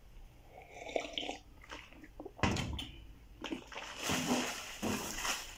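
A sip of coffee from a mug, a couple of sharp knocks, then a plastic flatbread bag crinkling loudly as it is handled.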